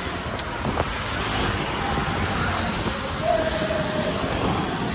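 Steady rush of wind over the microphone and tyre and road noise from a road bike riding at speed in a group.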